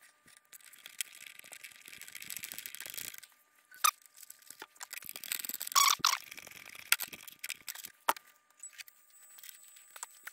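Sped-up time-lapse audio of hand work on model-aircraft control linkages: light clicks of a screwdriver and small metal clevis hardware, and short high-pitched squeaks, loudest around the middle.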